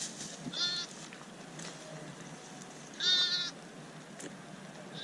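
Sheep bleating: a short bleat about half a second in, then a louder, longer bleat about three seconds in.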